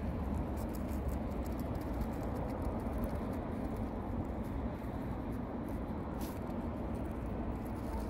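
Meerkat digging in loose soil and grit with its claws: a run of short scratching clicks over a steady low traffic rumble.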